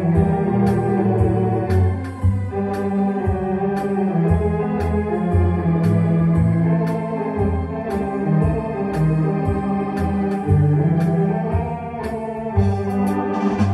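Technics EA5 electronic organ voiced with Tower Ballroom theatre-organ sounds, playing a ballroom tune. Held chords sit over a moving bass line, with a steady light percussion beat from the rhythm section that gets busier near the end.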